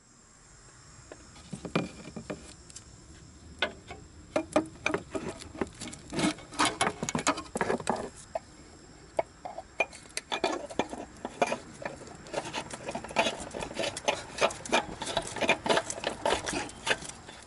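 Irregular clicks, taps and rubbing as the oil filter housing is handled and threaded back onto the engine by hand.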